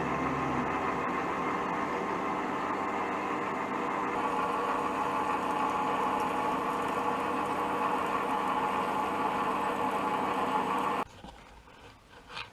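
Electric power tool running steadily with an even motor whine, cutting off abruptly about 11 seconds in.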